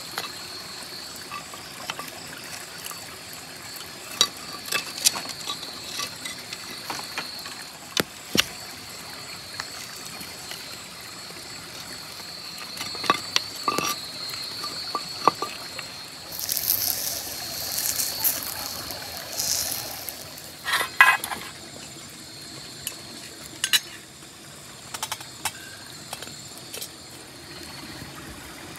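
Campfire being tended with wooden sticks: scattered clicks, knocks and scrapes of wood against stones and burning embers, over the steady rush of a river and a steady high tone. A brief high hiss comes about two-thirds of the way in, and a quick cluster of louder knocks just after it.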